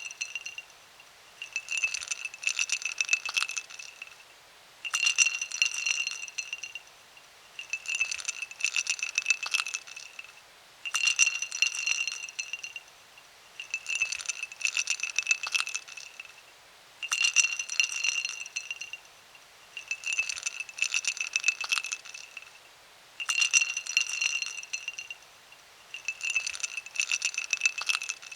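Ice cubes dropped into a glass, clattering and clinking against it with a ringing glass tone, repeated as separate pours about every three seconds.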